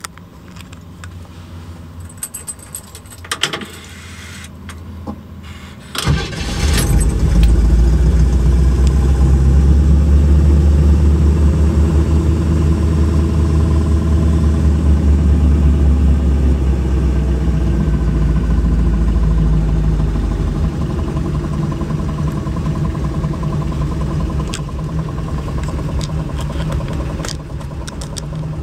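Keys jangling and clicking in the ignition, then about six seconds in the 1962 Chevy Impala's mild 283 small-block V8 cranks and starts, heard from inside the cabin. It settles into a steady idle that gets a little quieter about twenty seconds in.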